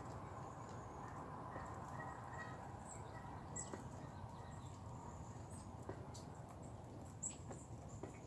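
Faint outdoor background hiss with a few brief, sharp, high chirps from a small bird, the clearest two about three and a half and seven seconds in.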